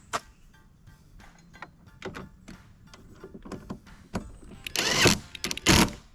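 Background music over scattered clicks and clatter of hand tools at work on the bracket's Torx bolts, with two loud, harsh sounds about half a second long a little before the end.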